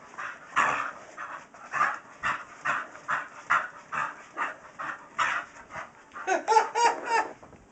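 Staffordshire Terrier panting hard in quick, even breaths, about two a second, while spinning after her tail, with a short whining sound near the end.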